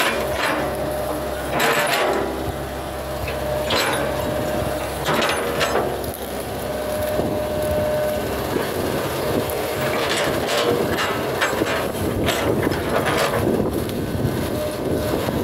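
Hitachi hydraulic excavator's diesel engine running steadily under load, with a thin steady whine through the first half. Repeated sharp cracks and crunches come as the bucket digs into soil and palm debris.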